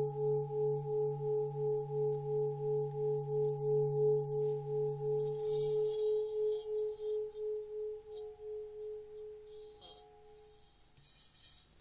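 A 24.5 cm Full Moon singing bowl ringing out, its low D near 142 Hz and a G-sharp overtone near 425 Hz sounding together, the higher note wobbling about three times a second. The low note stops about six seconds in and the higher note fades away near the end, with light rubbing from hands turning the bowl.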